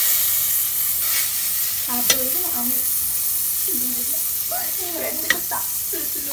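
Butter sizzling as it melts in a hot aluminium pot, with a steel spoon stirring and scraping it around the pot and a couple of light clinks. This is the butter being heated before the popcorn kernels go in.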